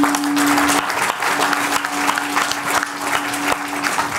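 Audience applauding: a dense, steady crackle of many hands clapping.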